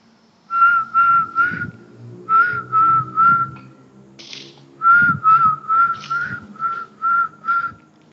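Short whistled notes, all at the same pitch, in quick runs: three, then three, then about seven, roughly two to three notes a second. A brief rustle falls between the second and third runs.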